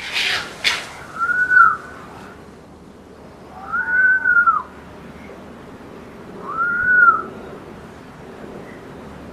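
A fox giving three high, whistle-like whining calls a couple of seconds apart, each rising and then falling in pitch. Two short noisy bursts come just before them at the start.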